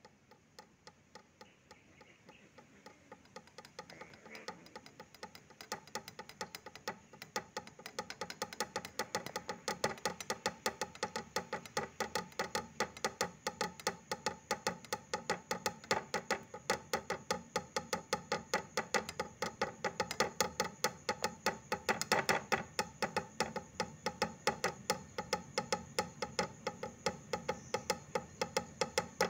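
Background music with a steady, quick percussive beat of about four ticks a second, fading in over the first several seconds.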